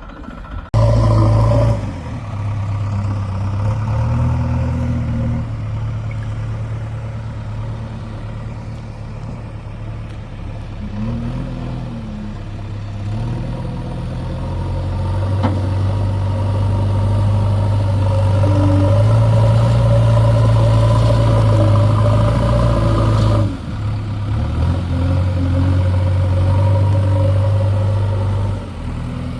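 Diesel engine of a JCB 3DX backhoe loader running while the machine digs and loads, its note stepping up and down with the load. The sound changes abruptly about a second in and again near the end.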